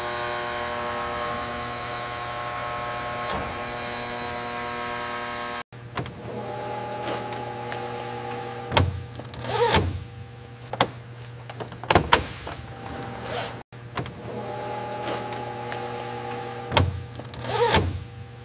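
An electric motor whirring steadily, then, after a brief break, a series of sharp mechanical clicks and clunks with short whirs and squeaks. The click-and-clunk pattern repeats about eight seconds later.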